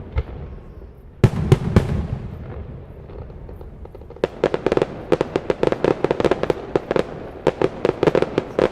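Fireworks display: a cluster of loud shell bursts about a second in, trailing off in a rumbling echo, then from about halfway a rapid, continuous run of sharp crackling pops.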